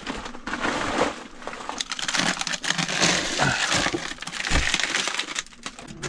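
Plastic bags crinkling and rustling, with frozen food packages crackling and knocking as they are taken out of a freezer.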